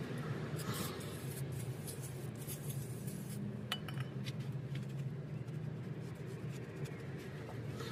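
Scattered light clicks and clinks of hand work at a truck's rear differential cover, over a steady low hum.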